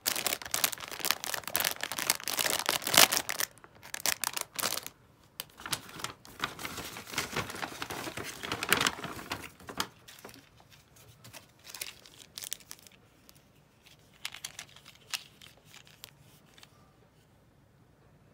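Crinkling and rustling of something being handled, in dense bursts for about ten seconds, then sparser and fainter.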